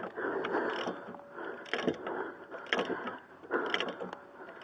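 A wrench working a stubborn rear brake caliper bolt on a Chevy Malibu, the bolt set with red Loctite. The metal grates, with a sharp click about once a second through the second half.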